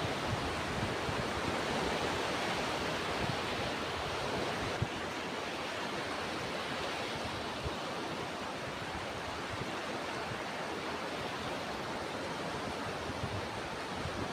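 Ocean surf washing steadily, a little fuller over the first few seconds and then evening out, with a few faint low thumps.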